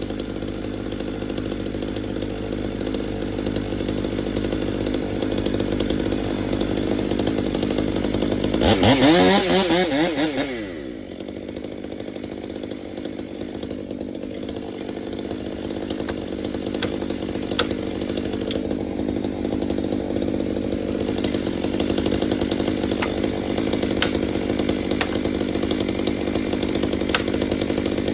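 Gas chainsaw running while cutting into a large pine tree. About nine seconds in it revs up sharply and the pitch sweeps up and back down. It then settles into a steadier, lighter running sound with scattered sharp ticks.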